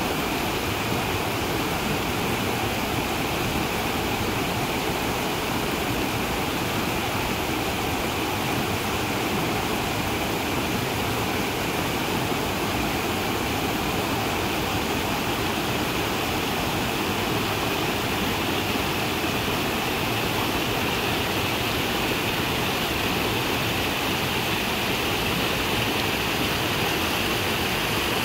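A small creek cascade: water rushing steadily over a low rock ledge and splashing into a pool.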